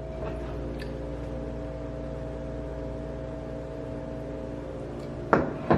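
Steady hum of a running kitchen machine, such as an appliance or fan, holding several fixed tones. There is a faint tap about a second in and a couple of louder knocks or clatters near the end.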